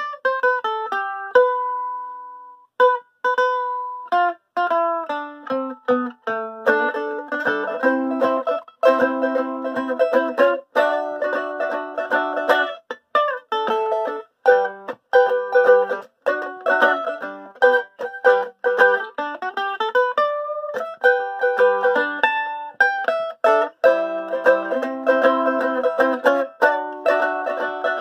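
Homemade four-string mandolin with a cedar top and walnut back, played with a pick. It opens with a few single notes, then from about six seconds in a lively tune is picked in quick strokes with fuller chords. The tone is bright and penetrating.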